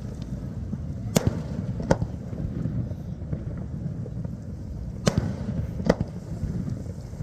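Fireworks shells going off: four sharp bangs in two pairs, each pair a little under a second apart, over a steady low rumble of background noise.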